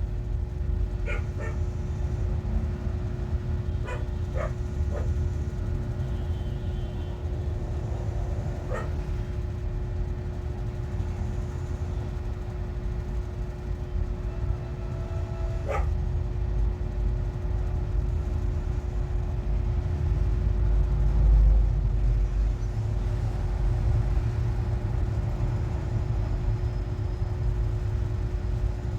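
A steady low rumble with a constant hum, broken by a few short dog barks: about a second in, around four and five seconds, near nine seconds and once near sixteen seconds.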